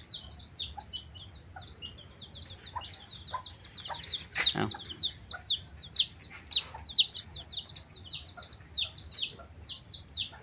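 A brood of chicks peeping: many short, high cheeps overlapping, several a second, growing busier after about four seconds. A faint steady high whine runs underneath, and there is one sharp click about four and a half seconds in.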